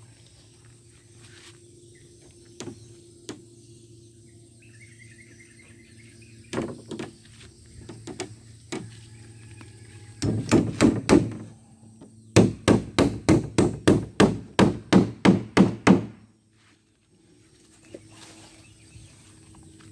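Claw hammer driving nails into the wooden frame of a plank boat hull. A few scattered taps come first, then a quick burst of blows, then an even run of about fourteen strikes at roughly four a second, which stops a few seconds before the end.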